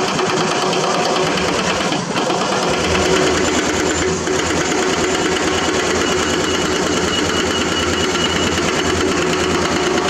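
Crawler excavators' diesel engines running steadily with a dense, rapid mechanical clatter as the machines dig rock.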